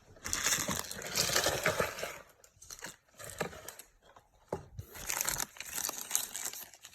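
Trading-card pack wrapper crinkling and tearing as it is handled and opened, in two stretches of rustling with a quieter middle of a few light clicks.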